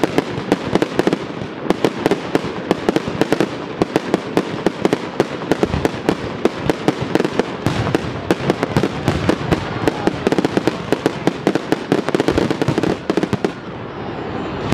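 Fireworks display: a rapid, continuous barrage of aerial shell bursts and crackle, easing briefly near the end before building again.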